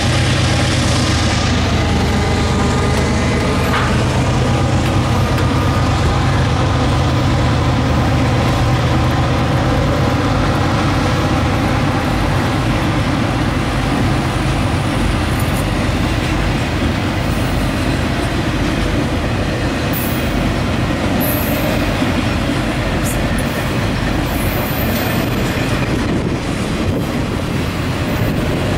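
Intermodal freight train going by: the low drone of its diesel locomotives fades over the first dozen seconds, leaving the steady rumble and clatter of trailer-laden flatcars rolling on the rails. A few brief high squeals from the wheels come in the second half.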